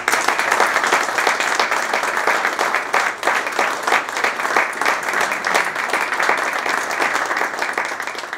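Audience applauding, a steady patter of many hands clapping that tapers off near the end.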